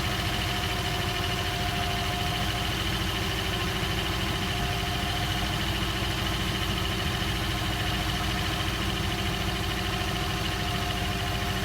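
Idling 5.2 V8 engine with its belt-driven Sanden 605 six-cylinder compressor running as an onboard air compressor, pumping steadily as the tire nears its maximum pressure cut-off.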